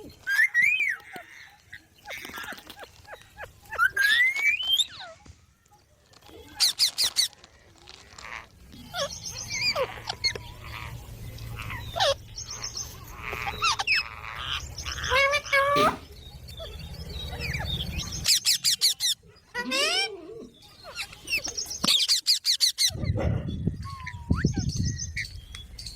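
A baby green parrot chirping and squawking in short repeated calls, some gliding in pitch and some rapid trilled bursts, on and off throughout.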